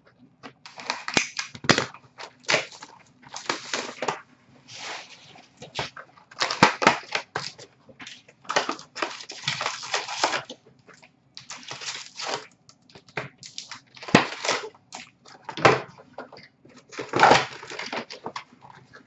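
Hockey card packs and their cardboard box being handled: irregular rustling and crinkling of foil pack wrappers and cardboard as packs are pulled out and sorted.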